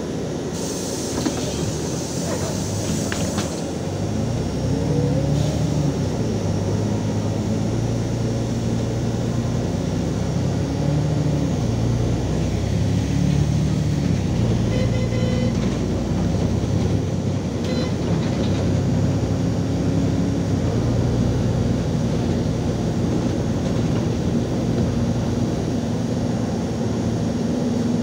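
Interior sound of a LiAZ 5292.22 city bus's diesel drivetrain. It opens with a hiss and a few clicks, then the engine grows louder as the bus pulls away. Its pitch rises and falls several times as it accelerates through the gears.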